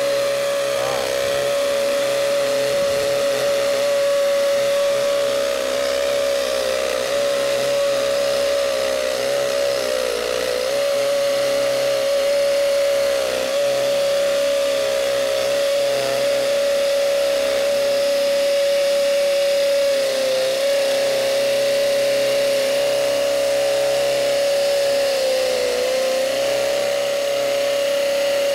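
DeWalt brushless hammer drill on speed 2 running continuously, boring a half-inch masonry bit into a concrete block. Its steady high-pitched hum sags briefly in pitch a few times as the bit bites under load.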